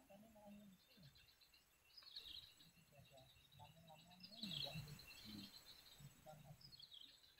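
Faint bird chirping in three short bursts, over a faint low murmur.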